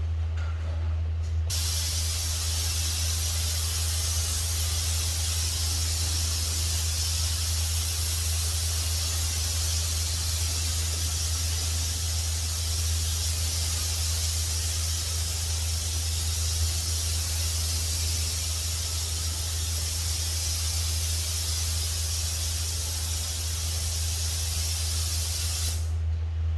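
Spray gun hissing steadily as primer is sprayed onto car body panels, starting about a second and a half in and cutting off shortly before the end. A steady low hum runs underneath.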